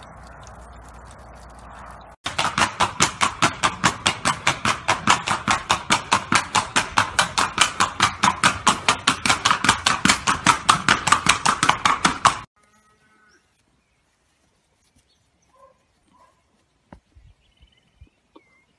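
Horse's hooves striking a hard paved surface in a quick, even rhythm of about five beats a second. It starts about two seconds in, after a steady low hiss, and stops abruptly about ten seconds later.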